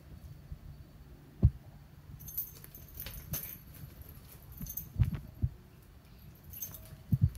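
A cat pouncing and landing on the floor while chasing a fishing-pole feather toy, making short dull thumps: one about a second and a half in, a few around five seconds, and a quick pair near the end. Light jingling clicks come in between.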